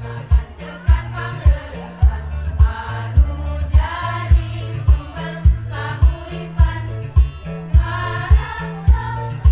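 Women's choir singing in parts over an accompaniment with bass notes and a steady low beat a little under two a second.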